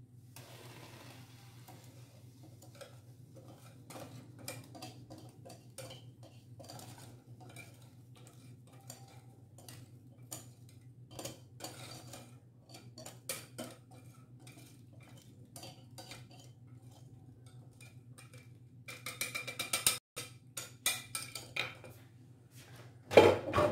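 Light clinks and scrapes of a utensil against a mixing bowl as semolina cake batter is poured into a glass baking dish, over a steady low hum. The clicking grows busier and louder near the end, followed by a single louder knock.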